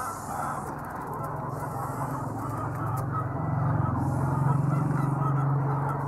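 A flock of white laying hens clucking and squawking, disturbed by a hand reaching in under them for eggs. A low steady hum swells from about halfway in.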